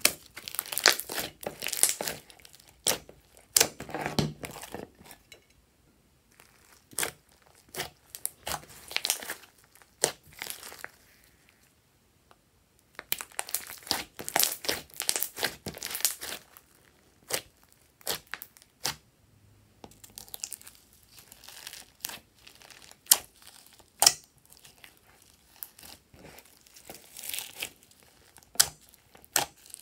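Hands squishing, stretching and folding glossy slime mixed with foam beads, giving wet crackling, clicking and popping of trapped air. It comes in bursts with short pauses between.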